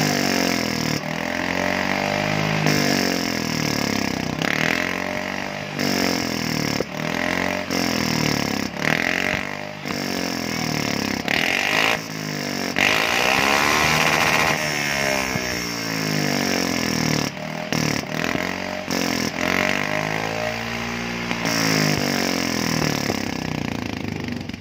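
Yamaha Fino 125 scooter's single-cylinder four-stroke engine running through its hollowed-out (bobok) muffler, revved up and down again and again, with the highest rev about halfway through. The engine sound drops away near the end.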